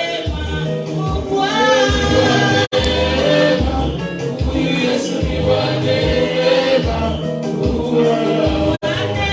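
Gospel worship music: voices singing together over instrumental backing with a pulsing bass line. The sound drops out for an instant twice.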